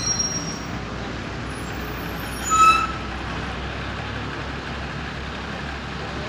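Large vehicle engine running steadily, as from the parked fire tenders, over outdoor traffic noise. Two short high-pitched tones stand out, one at the start and a louder one about two and a half seconds in.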